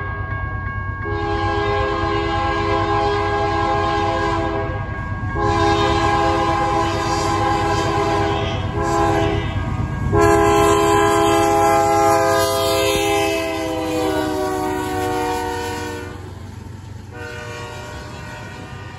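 Diesel locomotive air horn blowing a multi-note chord in a series of blasts for a grade crossing: several long blasts, a short one, then a final long blast whose pitch drops as the locomotive passes. Beneath it runs the rumble of the westbound double-stack intermodal train rolling by, which carries on after the horn stops.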